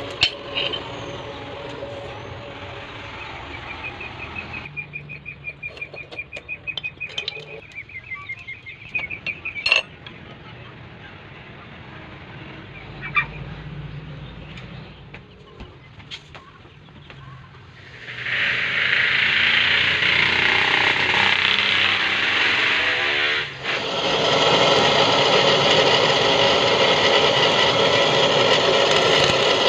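Knife-making workshop sounds from working a steel bearing race. A machine runs with a whine at the start, and a few sharp single metal knocks stand out. From a little past halfway a power grinder runs loud and steady on the steel through to the end.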